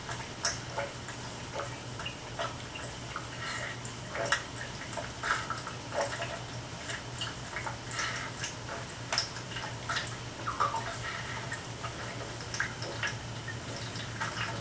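Scattered light clicks and taps of accessories being handled and fitted onto an AR-15 rifle, irregular and unhurried, over a low steady hum.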